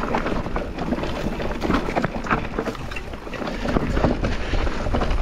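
Enduro mountain bike descending a dry, rough trail: tyres rolling over loose dirt and stones, with a constant run of sharp knocks and rattles from the bike at every bump and wind rushing over the microphone.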